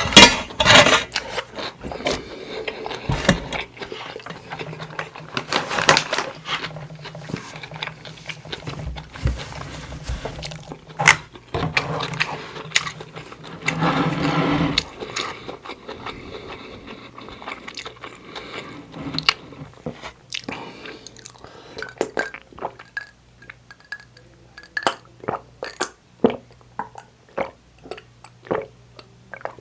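Close-miked eating sounds: chewing and biting into seafood fried rice with shrimp and squid, with many scattered sharp clicks and a few louder stretches of chewing.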